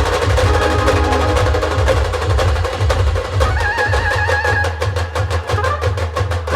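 Dhol-tasha band drumming: fast, even tasha strokes over heavy dhol beats. About halfway through, a wavering high melody line joins the drums.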